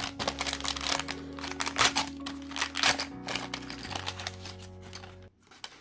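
Plastic blind-bag wrapper crinkling and tearing as it is pulled open by hand, over background music with sustained notes. The crinkling and the music both stop shortly before the end.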